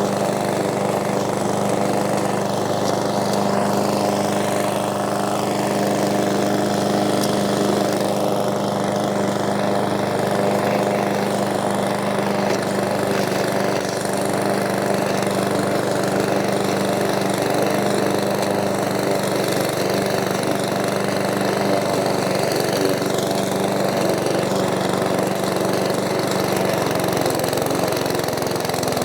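PowerSmart 170cc single-cylinder four-stroke lawn mower engine running at a steady speed.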